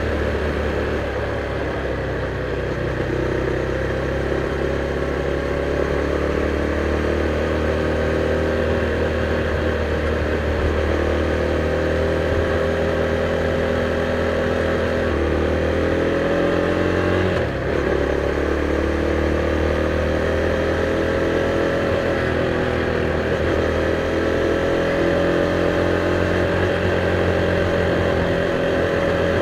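KTM Duke 390's single-cylinder engine, stock exhaust, running under way. Its pitch climbs slowly, dips briefly a little past halfway, then climbs again.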